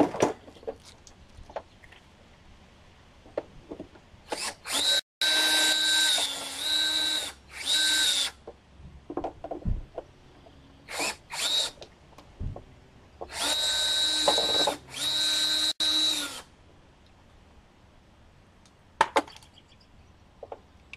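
Power drill-driver spinning in bursts, backing out screws to free a part: two runs of a few seconds each with a steady whine that winds down at the end, short blips between them, and small clicks and knocks of handling.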